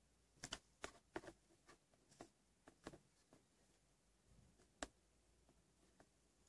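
Faint, irregular clicks and taps of a finger on a smartphone touchscreen and of the phone being handled on a table: a quick cluster in the first three seconds, then one sharper click near five seconds.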